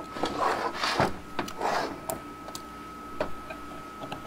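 Scattered clicks, light knocks and a few short scrapes as the metal parts of a 4L80E transmission's valve body are handled and picked apart on a workbench. A faint steady high tone sits under them.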